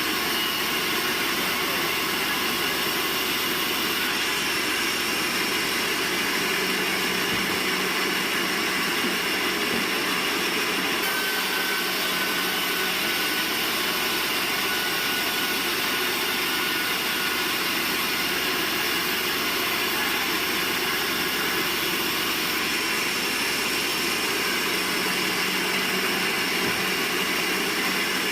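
Sawmill machinery running with a steady, unbroken noise and a constant whine, with no distinct cuts or knocks.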